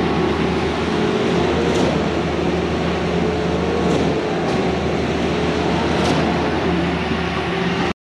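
Putzmeister 38-5 truck-mounted concrete boom pump running flat out at about 150 cubic meters per hour. The engine is held at high revs with a steady hum, and a sharp knock comes about every two seconds as the pumping cylinders change stroke.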